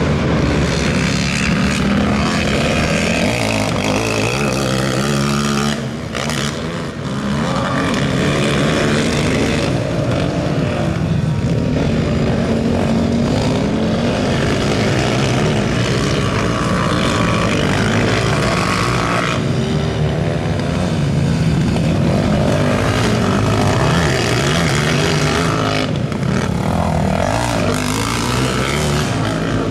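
Racing quads of the over-450 cc class running on a dirt track, several engines overlapping. They rise and fall in pitch as the riders accelerate and back off through the corners, with a brief dip about six seconds in.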